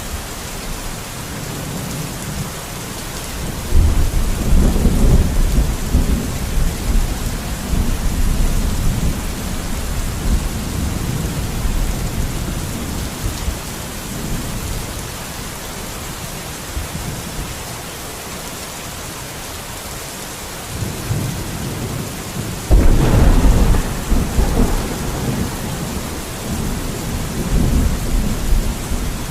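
Steady rain hissing, with two rolls of thunder. The first breaks sharply about four seconds in and rumbles away over several seconds. The second, slightly louder, builds and then cracks about twenty-three seconds in, rumbling on toward the end.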